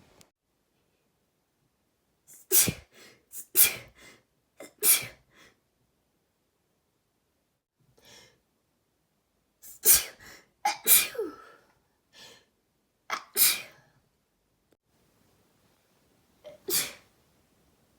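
A person sneezing again and again: three sharp sneezes a few seconds in, a cluster of several more in the middle, and one more near the end, with silent gaps between.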